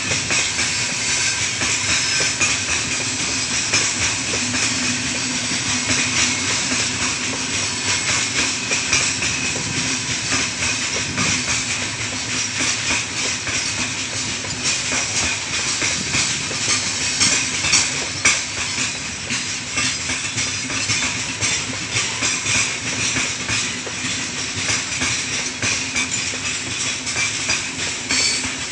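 A loaded freight train's new gondola wagons roll past with the brakes applied. The wheels clatter over the rail joints under a steady, high-pitched noise of braking.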